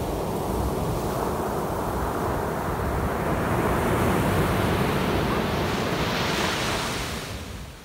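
Ocean surf breaking and washing up the beach in a steady rush that swells in the middle and fades near the end before cutting off, with wind buffeting the microphone.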